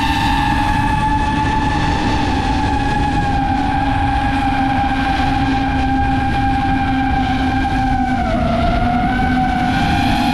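FPV drone's electric motors and propellers whining steadily, layered pitches over a low rushing noise; the pitch dips briefly about eight seconds in as the throttle eases.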